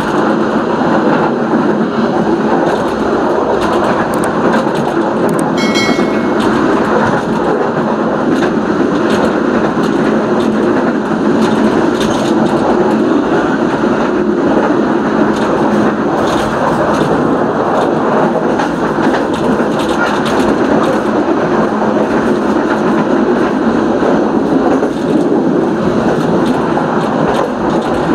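Steady running noise of a moving train heard from inside its rear cab, with the wheels rolling on the rails and light clicks scattered through it. A short high-pitched tone sounds briefly about six seconds in.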